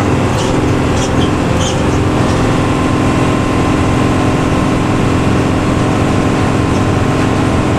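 Luragung bus's front-mounted diesel engine and "ngorok" (snoring) exhaust running steadily under way, with a few brief high ticks in the first two seconds.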